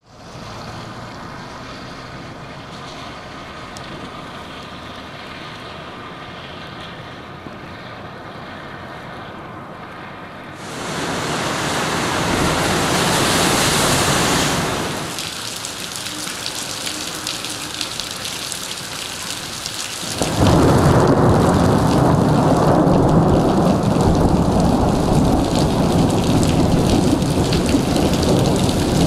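Rainstorm noise: steady rain at first, then a loud surge of breaking sea waves about a third of the way in. About two-thirds in it gives way to a louder, deeper rumble of rain and storm.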